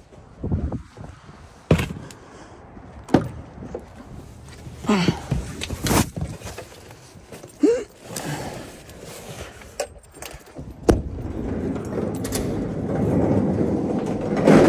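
Handling noise from bags and gear being carried and loaded: a string of separate knocks, thuds and clicks, with a door among them. In the last few seconds a steadier rushing noise builds up.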